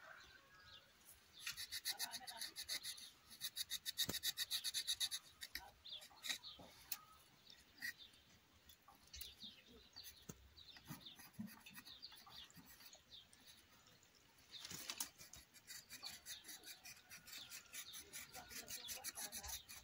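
Knife blade scraping bark off a shrub branch in runs of rapid rasping strokes: a burst about a second and a half in, a louder one around four seconds in, and another from about fifteen seconds to near the end. The outer green bark layer is being stripped to ring the branch for air layering.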